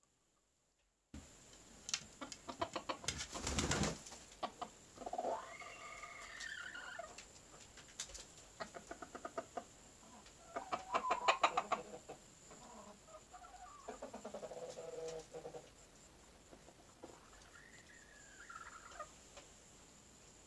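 Chicken clucking in a straw nest box: runs of quick clucks, mixed with several drawn-out calls that rise and then fall in pitch. The sound starts about a second in.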